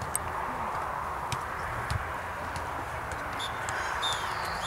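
Outdoor ambience at a youth football match: a steady noisy hiss with scattered sharp knocks, and a few faint short high chirps near the end.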